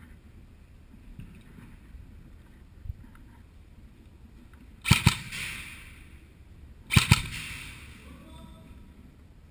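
Airsoft gun fired twice, each time as a quick pair of sharp cracks, about two seconds apart, each followed by a short fading hiss.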